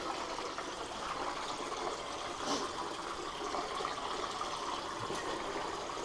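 A small underground cave stream running and trickling steadily over rock.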